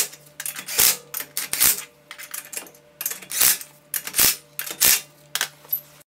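Cordless impact wrench hammering lug nuts onto a wheel in repeated short bursts of rapid clattering, over a faint steady motor hum; it cuts off suddenly near the end.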